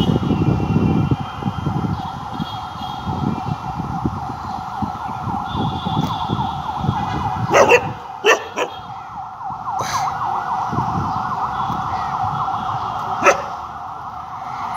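A steady, high buzzing drone that holds through, with low rumbling under it in the first couple of seconds and four sharp clicks from about halfway to near the end.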